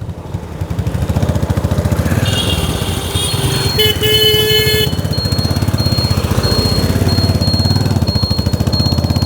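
Bajaj Discover motorcycle's single-cylinder engine running steadily, with no clicking from the rear wheel now that its loose bearing bore has been tightened and the bearing packed with grease. A vehicle horn sounds for a couple of seconds, starting about two seconds in.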